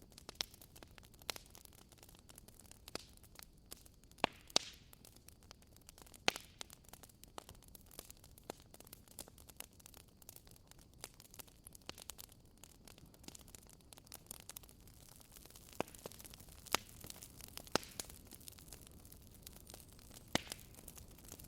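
Wood fire crackling in a fireplace: irregular sharp pops and snaps over a low, steady hiss.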